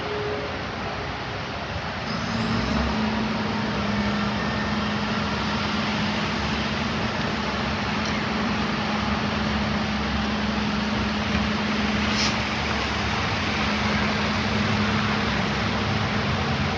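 Heavy rain falling on wet pavement, a steady hiss. About two seconds in, a heavy vehicle's engine sets in with a steady low hum under the rain.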